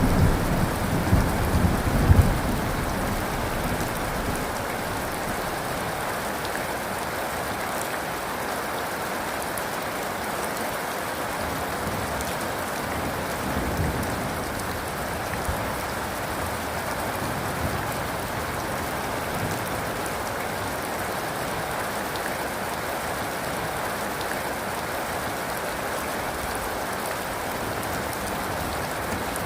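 Steady heavy rain falling. A low thunder rumble dies away in the first two seconds or so, leaving the rain alone.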